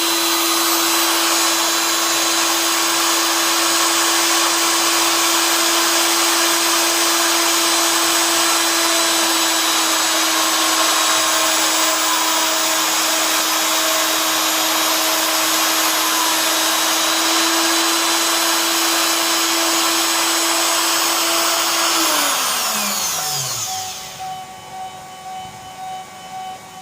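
A CNC machine's spindle motor running steadily at high speed with a loud hiss and a steady hum, then switched off about 22 seconds in, its pitch falling as it spins down. A quieter pulsing machine sound follows near the end.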